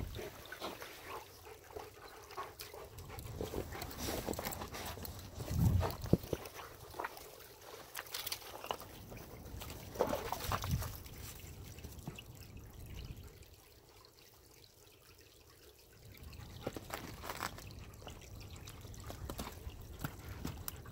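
Wind gusting against the microphone, with a low rumble that swells twice, over irregular crunching and crackling steps in snow.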